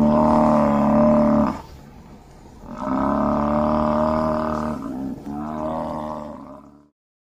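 Buffalo bellowing: three long calls with a steady pitch, the last cut off abruptly near the end.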